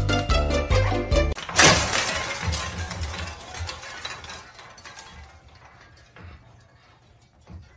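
Music stops abruptly, then a sudden loud crash follows, fading away over several seconds.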